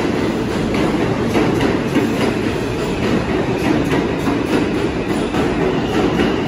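R160 subway trains running express through an underground station without stopping: a loud, steady rumble with rapid clacking of wheels over the rail joints.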